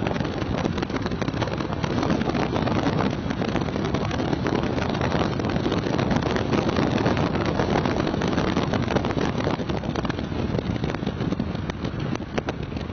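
Wind rushing across the microphone and the rumble of a vehicle driving at speed, easing off somewhat in the last couple of seconds.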